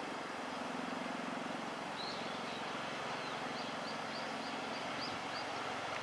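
Steady low hum of approaching JR Freight EF64 electric locomotives, with a small bird chirping once about two seconds in and a quick run of about seven chirps near the end.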